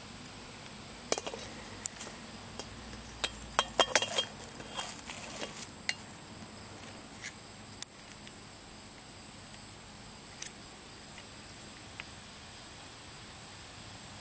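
Light metal clicks and clinks as a small Coleman canister stove, its folding pot supports, and a gas fuel canister are handled, clustered in the first six seconds and then down to a few single ticks. A steady high-pitched hum runs underneath.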